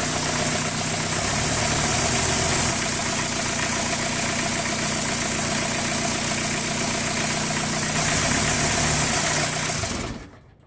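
VW turbo-diesel engine running at a steady idle, with its speed stepping up briefly twice as the injection-pump throttle is worked. It settles at a normal idle instead of the high-idle runaway caused by the stuck pump plunger, then shuts off near the end.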